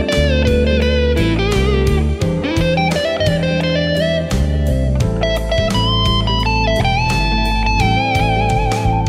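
Gretsch G5222 Electromatic Double Jet electric guitar playing single-note lead lines with sustained notes, bends and vibrato. Underneath, a backing track of bass and drums keeps a steady beat.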